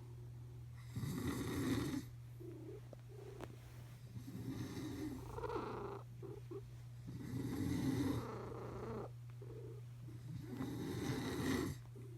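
Snoring: four long, rasping breaths about three seconds apart, over a steady low purr.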